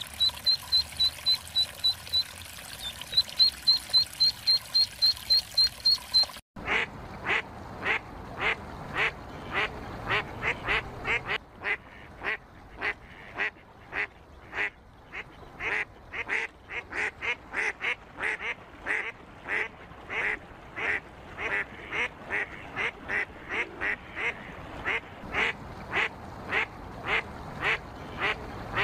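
Canada goose goslings peeping in a rapid run of short, high, even peeps, over faint water lapping. About six seconds in it cuts abruptly to a regular series of duck quacks, about two a second.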